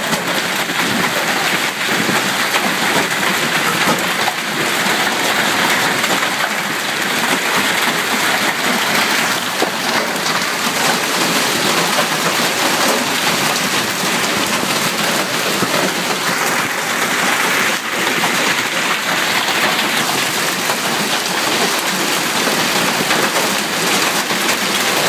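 Heavy rain mixed with hail pelting down in a steady, dense downpour.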